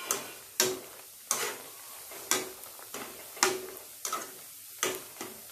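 A metal slotted spoon knocks and scrapes against a metal kadai about eight times at irregular intervals while turning bread pieces frying in hot oil. The oil sizzles softly underneath.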